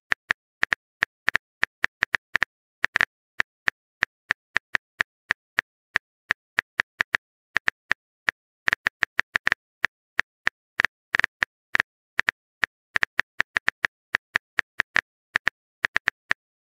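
Phone keyboard typing sound effect: a long run of quick, irregular clicks, several a second, each a short high tick.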